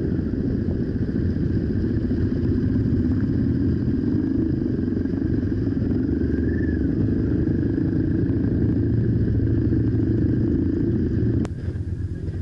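Motorcycle engine running steadily with wind and road noise on the on-board microphone. About eleven and a half seconds in it cuts off abruptly to a quieter outdoor background.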